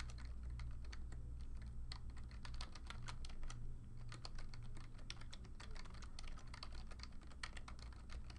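Typing on a computer keyboard: a quick, irregular run of key clicks, with a steady low hum underneath.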